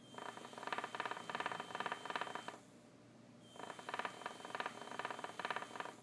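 Small buzzer and little DC motors (a fan motor and a vibration motor) running together each time a magnet closes a reed switch: a buzzing rattle with a thin high tone. It runs for about two and a half seconds, stops for about a second, then starts again.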